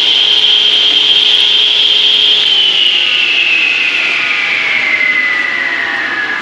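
MK electric wet saw's motor and blade running with a high whine. About two and a half seconds in it is switched off and coasts down, the whine falling slowly in pitch.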